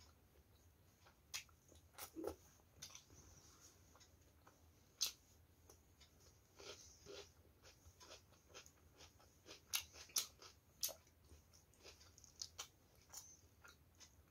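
Eating by hand: chewing and wet mouth sounds, with fingers mixing rice and fish curry on a steel plate, heard as irregular sharp clicks and smacks, a few much louder than the rest.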